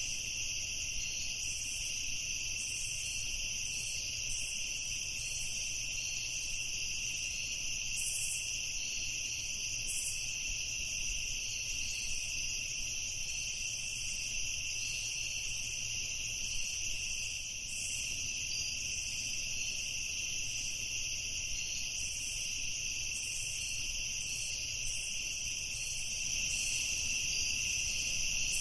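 Night insect chorus: a dense, continuous high-pitched shrilling at two pitches, with a faint rapid pulsing above it.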